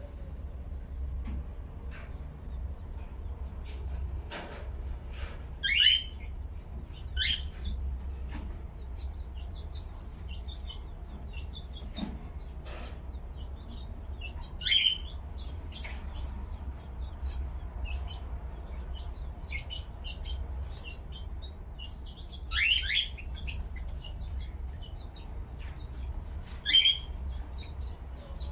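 Caged pet birds chirping, with about five louder, sharp calls that rise in pitch, scattered through, over a steady low hum.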